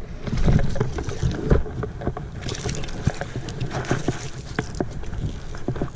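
A hooked bass splashing at the pond surface as it is reeled to the bank, with two brief splashes about two and a half and four seconds in, and clicks from the rod and reel being handled. Wind rumbles on the microphone throughout.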